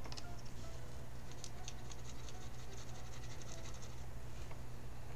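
Watercolour brush scrubbing the paint cake in a pan of the palette to load it, a quick run of fine scratchy strokes from about a second and a half in to about four seconds. A steady low hum sits underneath.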